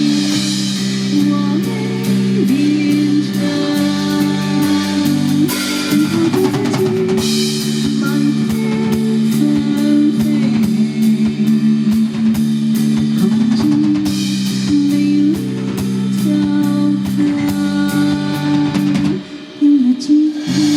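Live band music: guitar and drum kit over sustained low chords, with steady cymbal ticks on top. The music drops away briefly near the end and comes straight back in.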